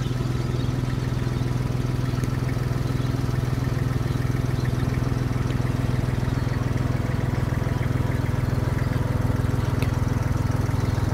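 Ride-on pitch roller's diesel engine running steadily at constant revs as the roller rolls forward, a low, even drone.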